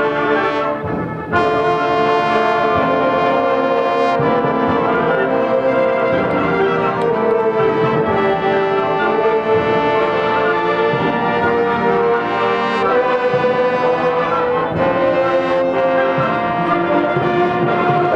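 Concert band of brass and woodwinds playing sustained full chords, with the brass to the fore. The sound dips briefly about a second in, then the full band comes back in.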